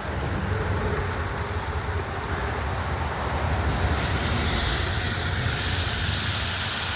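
Pork chops frying in a pan, a sizzling hiss that grows louder about four seconds in, over a steady low rumble.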